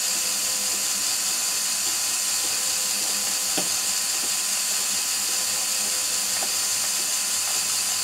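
Small fischertechnik electric motors driving their gearboxes, running steadily with a continuous high whir, with a couple of faint clicks along the way.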